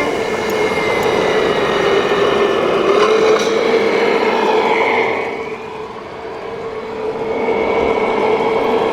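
An RC model vehicle running with a steady hum, quieter for a couple of seconds in the middle.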